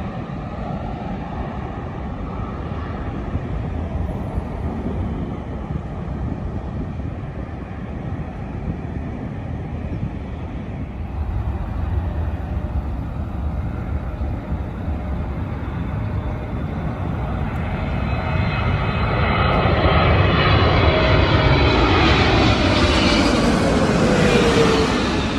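Jet airliner coming in to land: a steady engine rumble that swells over the last several seconds as the plane passes close, its engine whine sliding down in pitch near the end.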